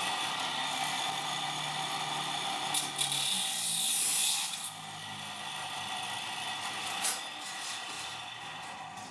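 Electric arc welding on a stainless-steel square-tube frame: a steady hiss with a faint whine, harsher and louder for the first four and a half seconds, then softer.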